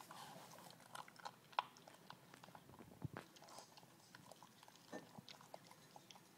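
Cavalier King Charles Spaniel puppy chewing and crunching his food: faint, irregular crunches and sharp clicks.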